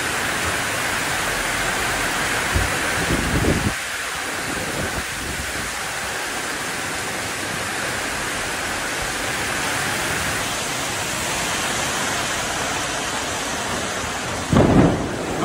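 Heavy wind-driven downpour: a steady dense hiss of rain pouring onto and running off corrugated metal roofs. It briefly swells with louder low rumbles about three seconds in and again near the end.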